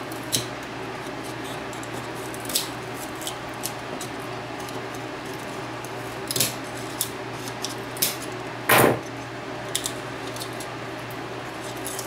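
Small scissors snipping and clicking at the thin metal supports holding a vacuum tube's mica insulator: scattered sharp clicks, with one louder, longer crunch about nine seconds in.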